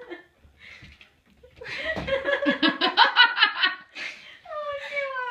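A person laughing hard in a quick run of short bursts, followed by a long drawn-out vocal sound falling in pitch near the end.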